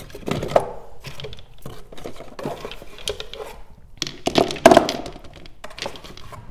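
Gel polish bottles clicking and knocking against each other as they are set into a plastic basket: a run of small taps and clinks, with a louder cluster about four and a half seconds in.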